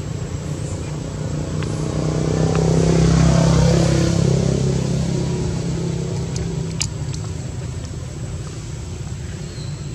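A motor vehicle passes by. Its engine grows louder to a peak about three seconds in, drops in pitch as it goes past, then fades away. A single sharp click comes near seven seconds in.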